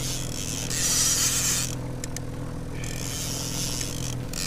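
Boat motor running steadily at trolling speed, a low hum with a steady pitch. Two rushes of hiss, each about a second long, come over it.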